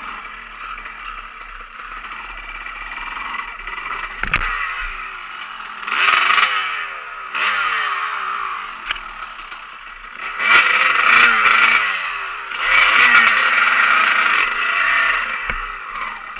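Dirt bike engine revved in repeated bursts, its pitch rising and falling, with a sharp knock about four seconds in.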